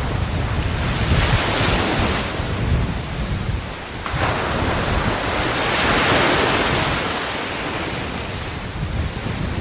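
Ocean surf breaking and washing up the beach, with wind buffeting the microphone. The wash swells about a second in and again around the middle, with a lull just before.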